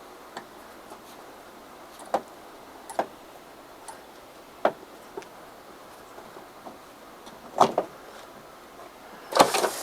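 Scattered clicks and knocks, about one every second or two, with a louder cluster of knocks near the end: hand tools and a solid rubber tire being handled while the tire is worked onto a scooter wheel rim.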